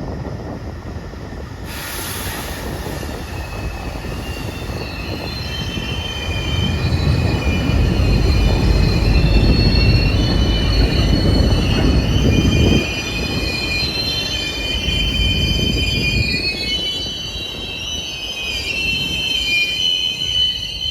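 Container freight train behind twin WDM-3A ALCO diesel locomotives braking hard to a halt. Its brakes screech on the wheels in several high squealing tones, over the heavy rumble of the rolling train. The rumble is loudest in the middle and drops off suddenly a little past halfway.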